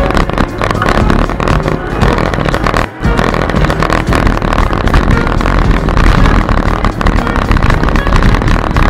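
Wind and road rumble on a bicycle-mounted camera's microphone while riding, full of small knocks and rattles from the bumps, easing off briefly about three seconds in. Background music plays faintly underneath.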